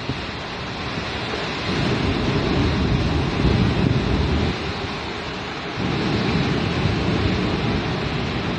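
Wind buffeting the microphone in gusts, a heavy low rumble that swells and eases, over a steady rushing hiss of sea surf.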